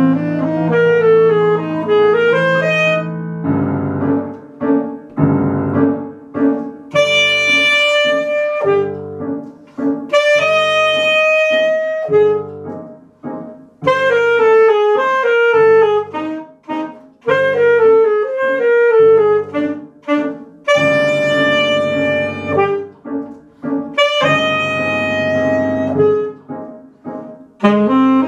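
Alto saxophone playing a melody: phrases of held notes and quicker runs of notes, broken by short gaps for breath.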